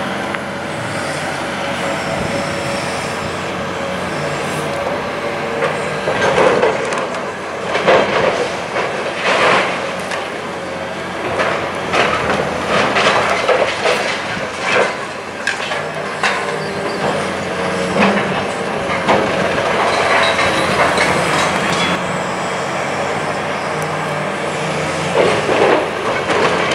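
High-reach demolition excavator at work: a steady diesel engine and hydraulic drone, with irregular crunches, cracks and clatter of concrete being crushed and rubble falling. The cracking starts about six seconds in and comes often after that.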